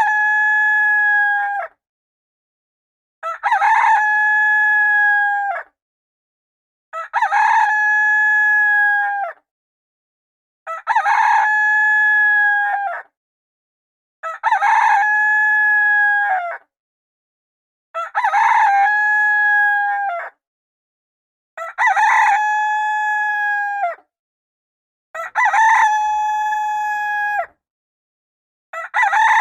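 Rooster crowing as a timer alarm going off at the end of the countdown: the same crow repeats about every three and a half seconds, each one held for about two and a half seconds and falling away at the end, with silence between.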